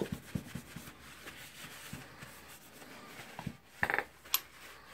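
Handling noise from small tool parts: soft knocks and rubbing in the first second or two, then a brief higher-pitched squeak-like sound and a single sharp click near the end.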